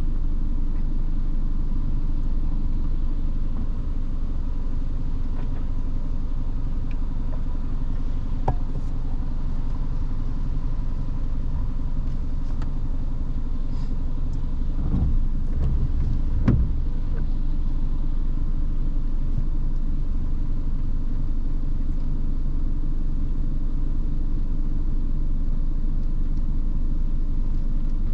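A car driving, with a steady low rumble of road and engine noise. A few faint clicks come through, and a couple of louder thumps come just past the middle.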